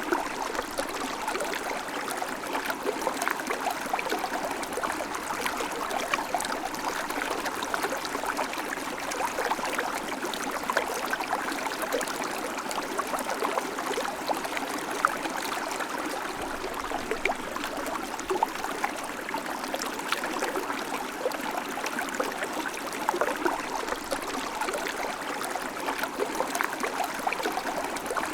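River water flowing and babbling steadily over stones, a constant rushing with many small splashes and gurgles throughout.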